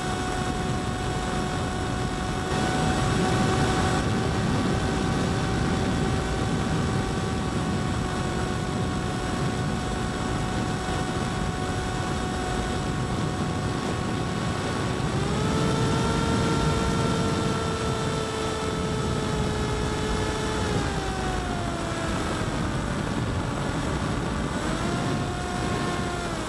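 RMRC Nano Skyhunter's electric motor and propeller whining in flight, heard from the onboard camera. The steady tone rises as the motor speeds up about halfway through, holds for several seconds, then falls back, with a short rise and drop near the end. A steady rush of wind noise lies underneath.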